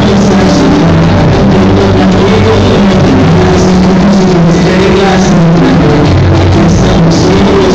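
Loud salsa music played for a couple's dance.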